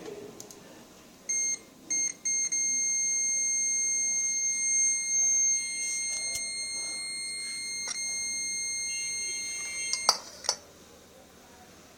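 Electronic beeper sounding a steady high-pitched tone: two short beeps, then one continuous beep for about seven seconds that cuts off, with a couple of clicks near the end. It is heard during a test of a Fiat Tempra's manifold temperature switch.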